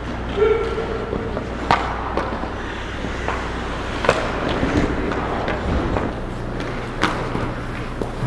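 Ice hockey play: skates scraping and carving on the ice, with sharp clacks of sticks and puck, three of them standing out at about two, four and seven seconds in.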